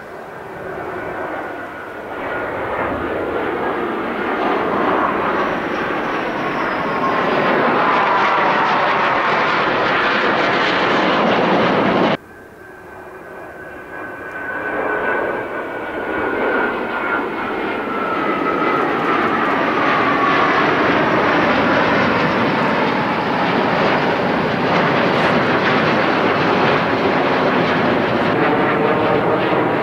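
Formation of F-15J Eagle fighter jets flying overhead, their twin turbofan engines a loud rush with a whine that slowly falls in pitch as they pass. The sound breaks off abruptly about twelve seconds in, then a second pass builds up and stays loud.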